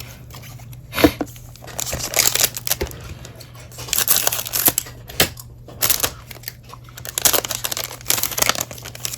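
Trading cards and their foil pack wrapper being handled: rustling and crinkling in several short bursts, with a couple of sharp clicks.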